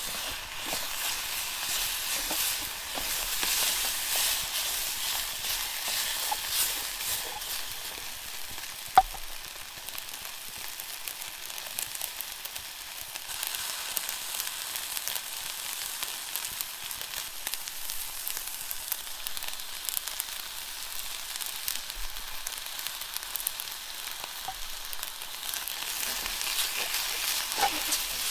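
Stir fry with straight-to-wok noodles sizzling and frying in a pan, a steady hiss that is busier in the first several seconds and again near the end. A single sharp click comes about nine seconds in.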